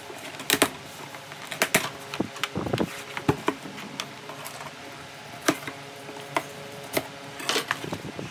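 A cardboard shipping box being opened by hand: scattered sharp clicks and taps of long fingernails on the cardboard, with scraping and rustling as the sealing tape is peeled off and the flaps are pulled open.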